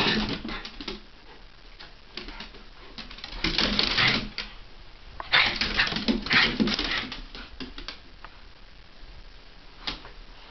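Two small dogs, a Havanese and a Jack Russell terrier, play-wrestling on a hardwood floor: three bursts of scuffling and play-growling, with quick clicking of claws on the boards between them.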